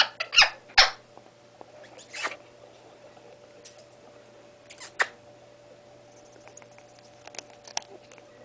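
Young Congo African grey parrot making short raspy clicks and chirps, several in the first second, another around two seconds and one about five seconds in, then softer ticks.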